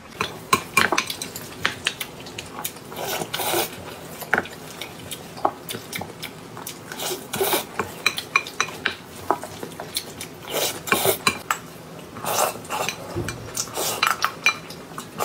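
A metal spoon clinking and scraping against a glass bowl, again and again at an irregular pace, as mixed rice (bibimbap) is stirred and scooped.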